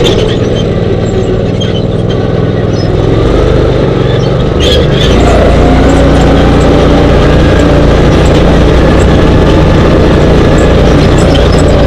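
Dune buggy engine running under way, with the rumble of the ride over sand; it gets louder about five seconds in as the buggy speeds up, and stays loud and steady.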